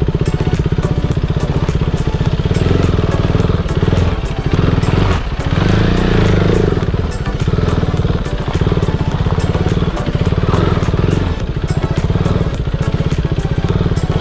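A small engine running steadily close to the microphone, with fast, even firing pulses and a brief dip a little after five seconds in.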